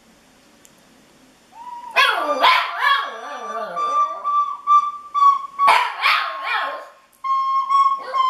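A Shih Tzu howling and yelping along to a recorder in two loud bursts a few seconds apart, while the recorder holds a steady high note between them and plays short notes near the end. The first second and a half is quiet.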